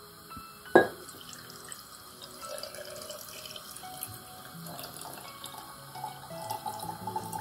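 Vodka pouring in a thin stream from a glass cup into a glass jar packed with pine cones. It starts a couple of seconds in as a steady trickle whose pitch rises as the jar fills. A single short knock about a second in.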